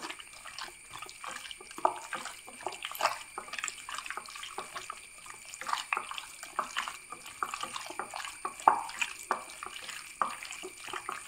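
Hands squishing and kneading raw chicken pieces in a thick yogurt-and-spice marinade in a glass bowl: irregular wet squelches and slaps.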